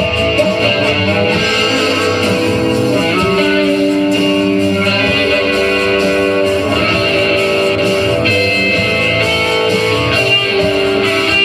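Instrumental break of a swamp-rock song: guitar playing long held notes over a steady band backing, without vocals.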